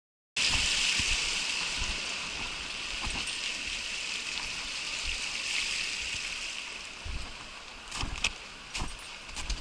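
Mountain stream rushing over rocks in a steady, even flow, cutting in suddenly just after the start. A few short sharp knocks sound near the end.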